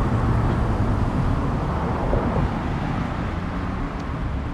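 Steady low rumble of outdoor background noise, fading slightly toward the end, with no distinct events.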